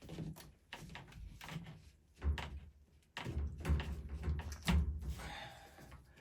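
A series of handling knocks and clunks, with several heavy, low thuds in the second half.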